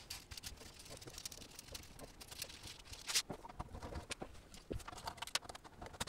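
Faint, scattered clicks and small metal taps as hex nuts are taken off the satellite F-connector sockets and screws out of the HDMI and serial-port connectors, then set down on a hard table.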